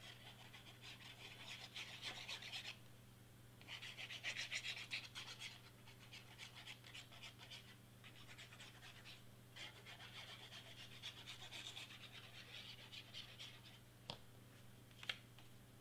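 Faint, rapid crackling sputter of Bearly Art glue being squeezed from its plastic bottle through the precision tip, in several runs of a second or two each. Two light clicks come near the end.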